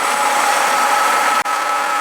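A motor running steadily with a constant whine; it cuts out for an instant about one and a half seconds in.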